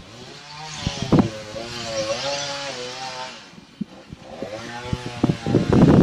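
A small engine running, its pitch rising and falling for about three seconds. A loud rush of noise comes near the end.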